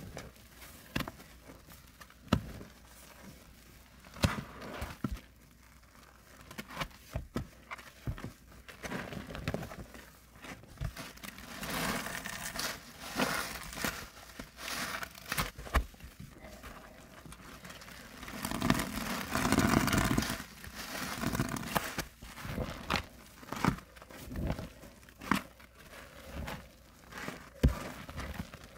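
A soapy kitchen sponge squeezed and pressed by gloved hands, with wet squelching and irregular crackling of the suds. There are longer, louder squeezes around the middle.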